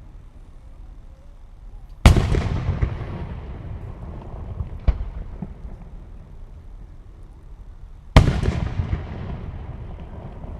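Aerial firework shells bursting: two loud booms about six seconds apart, each followed by a long fading echo, with a smaller sharp bang between them.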